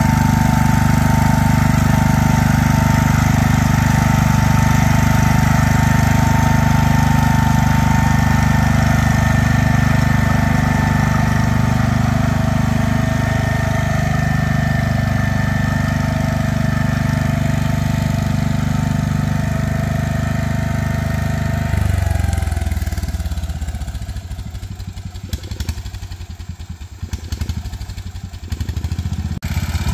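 Garden tractor engine running hard at high revs, with a steady whine over it. About 22 seconds in, the revs drop and the whine falls in pitch, and the engine runs slower and quieter with an uneven beat until it picks up again near the end.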